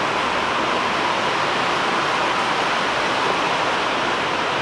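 Steady rain, a constant even hiss that does not change.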